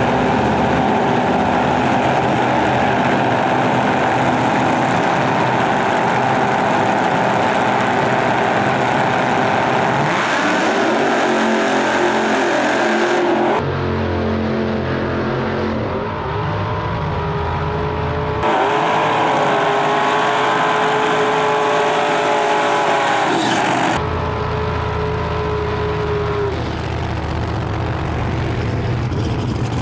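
Loud drag-race car engines revving and held at high rpm during burnouts, heard in a few separate takes that change abruptly.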